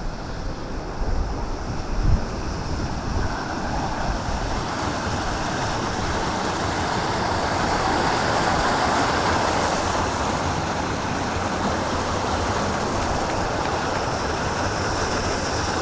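Steady rush of running water, with wind gusting on the microphone in the first two seconds or so.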